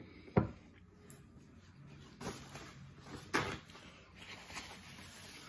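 A sharp knock about half a second in and two softer knocks later, tableware being handled on a table, then a paper napkin rustling near the end.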